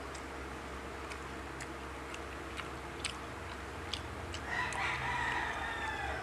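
A rooster crows once, a long call that starts about four and a half seconds in and falls slightly in pitch. Scattered small clicks of eating and handling food sound under and before it.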